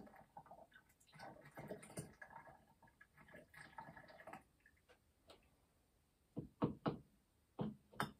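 Small objects handled on a work surface: a spell of light clicking and scraping, then three dull knocks about six to eight seconds in, the loudest sounds here, and a sharp click near the end.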